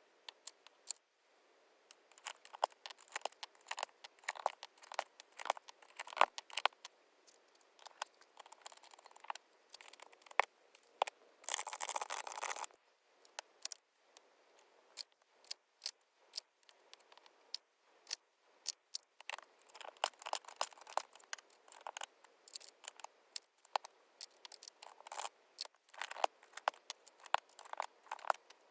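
Plastic keycaps clicking and clattering as they are swapped on a mechanical keyboard, in irregular clusters of sharp clicks, with one longer scraping rattle of about a second and a half near the middle.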